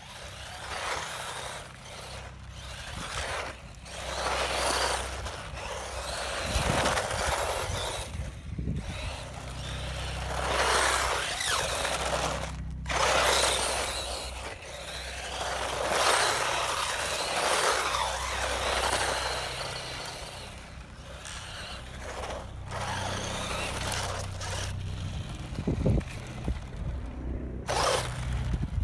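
Tamiya DT-03 Neo Fighter electric RC buggy driving over rough concrete bumps: motor and gear whine with tyre noise on concrete, swelling and fading as it speeds up and slows, with a couple of sharp knocks near the end.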